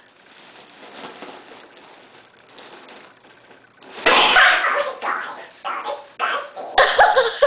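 Faint hiss of helium being breathed in from a balloon's neck, then about four seconds in a fit of coughing and spluttering in several rough bursts.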